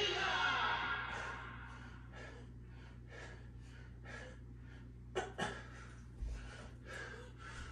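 A man breathing hard during dumbbell push-ups: a heavy breath at the start, then quick, even panting at about three breaths a second. Two sharp knocks come a little past five seconds in.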